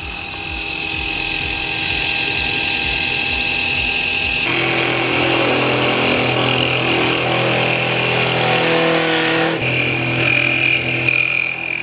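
Desktop CNC 1310 mill running: a steady spindle-motor whine over the noise of the end mill cutting a metal block. The sound changes abruptly about four and a half seconds in and again about ten seconds in.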